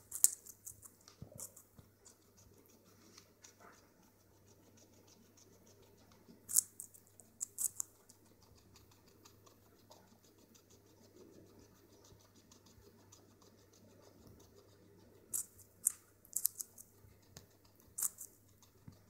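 A rabbit crunching a carrot, in several short, crisp bursts of quick bites and chewing.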